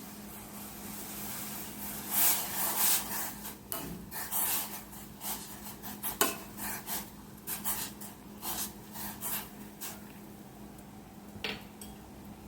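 A spoon clinking and scraping against a cooking pot in irregular strokes for several seconds, with one more clink near the end.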